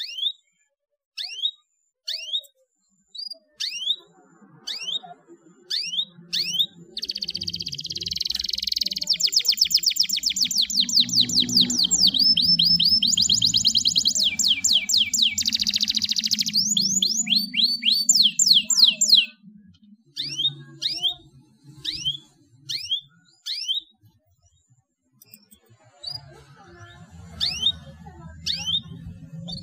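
Domestic canary calling with single downward-sliding chirps about once a second. A few seconds in it breaks into a long run of fast, rapidly repeated trills lasting about twelve seconds, then goes back to single chirps. A low hum sits faintly underneath.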